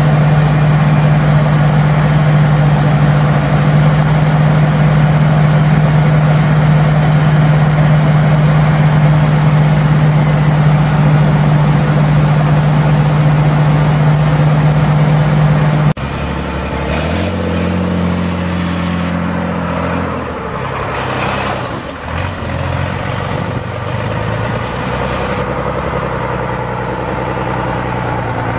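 A heavy farm tractor engine drones at a steady high speed under load, pulling a bogged slurry tanker. About halfway through the sound cuts abruptly to an off-road buggy's engine revving up and down as it works through deep mud.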